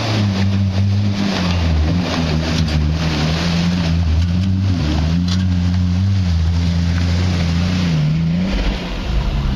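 Off-road vehicle engine running steadily under load, its pitch wavering slightly and dipping briefly near the end, under a constant rushing noise.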